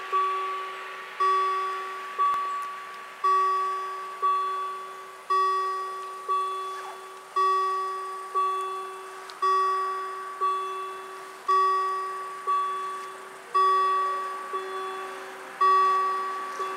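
Level crossing warning bell striking about once a second, each stroke ringing and fading before the next. It is the warning that the crossing is closing for an approaching train.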